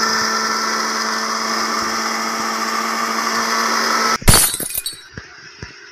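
Astron BL-153 blender motor running steadily on its lowest (whip) speed. About four seconds in it stops abruptly with a loud clatter, followed by a few faint knocks.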